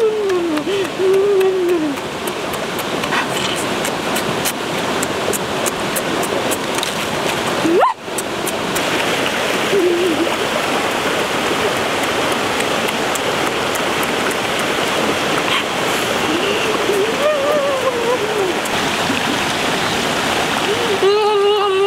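Shallow stream running over rocks: a steady rush of water. A man's short wordless voice sounds come through it near the start, about halfway, and again near the end.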